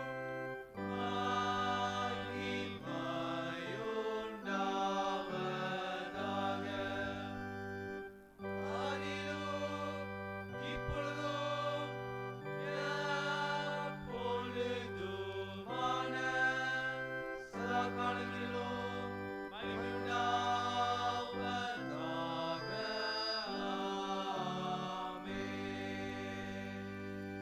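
Voices singing a slow sung response in church over sustained keyboard chords, the bass changing every couple of seconds, with a brief break about eight seconds in.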